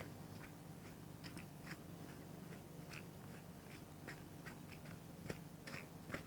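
A hiker's footsteps crunching on a forest trail, an even walking pace of two or three steps a second.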